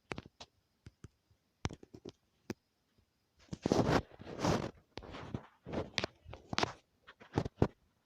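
Handling noise close to the microphone: scattered sharp clicks and taps, with two louder rustling scrapes about three and a half seconds in.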